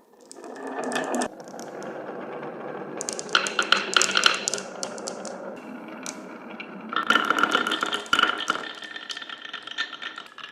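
Marbles rolling down wooden marble-run tracks, a steady rumble broken by clusters of sharp clicks and clatters as they hit and drop between wooden pieces, about three seconds in and again near seven seconds in.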